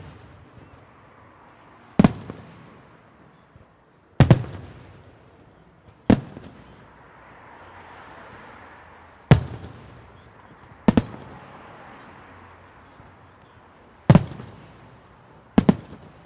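Aerial fireworks shells bursting in a display: about seven sharp booms a second and a half to three seconds apart, each trailing off in a rolling echo.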